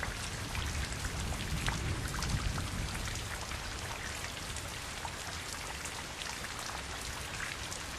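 Water from a small cement waterfall fountain falling and splashing steadily into its basin: a dense patter of drips over an even rush.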